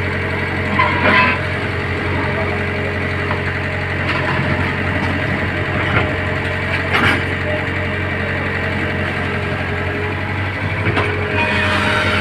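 Engine of road-construction machinery running steadily at idle, with a few sharp knocks or clanks now and then.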